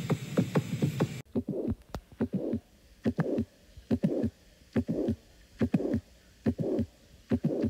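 Heart-sound audio. About a second in, a quick run of sharp heartbeat sounds over a hiss cuts off and gives way to a slower heartbeat. Each beat is a click followed by a short whooshing murmur, meant to be the sound of a dog's heart with dilated cardiomyopathy.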